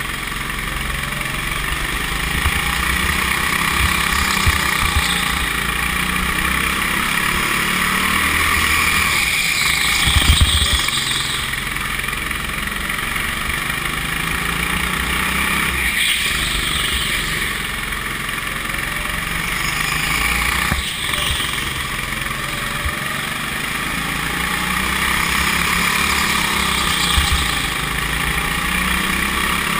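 Rental go-kart engine running hard through a lap, its pitch falling and rising again as the kart slows into corners and accelerates out. A brief louder rumble comes about ten seconds in.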